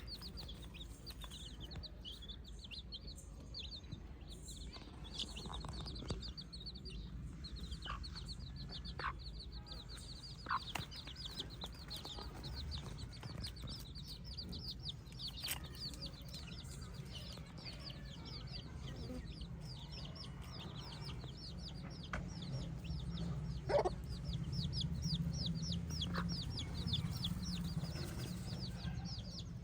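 Chickens clucking in a flock, over a continuous stream of quick high chirps and a low steady hum, with one louder call about three-quarters of the way through.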